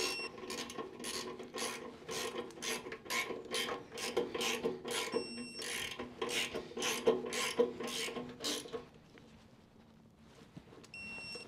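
Hand ratchet wrench clicking in a steady run, about three clicks a second, as bolts on a Harley-Davidson's front fork leg are turned; the clicking stops about nine seconds in. A short high beep sounds about five seconds in and again near the end.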